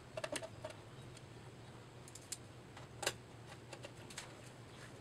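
Small scattered clicks and taps of a Phillips screwdriver and screws against the steel chassis and mounting bracket of a car stereo head unit, a cluster at first, then single clicks, over a faint steady low hum.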